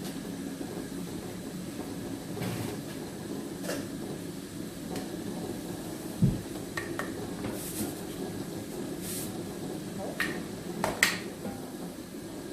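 A kitchen utensil clinking and knocking against a pot of onions frying on the stove a few times, over a steady low cooking noise; a dull thump about six seconds in is the loudest sound.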